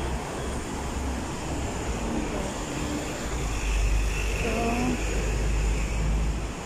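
Road traffic noise: a steady rumble of cars and buses, with a deeper low rumble building about three and a half seconds in.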